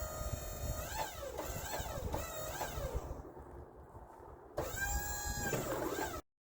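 Small electric motors on a portable sawmill whining, rising and falling in pitch several times as they start and stop, then a steadier whine; the sound cuts off abruptly near the end.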